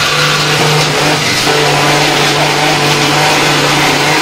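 Electric mixer grinder (Indian mixie) running steadily, its motor hum and the whirl of the blades in the steel jar grinding without a break.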